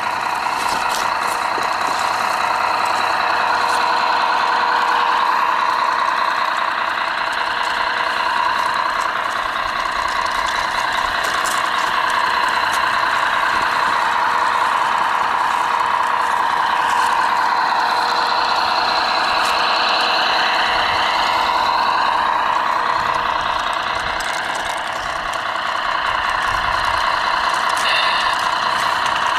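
Radio-controlled Peterbilt logging truck model driving: a steady mechanical running sound with a whine whose pitch wavers up and down with speed.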